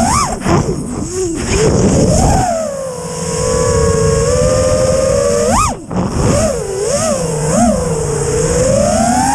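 FPV quadcopter's brushless motors and propellers whining, the pitch rising and falling with the throttle. There are quick blips about halfway through and a steady climb near the end.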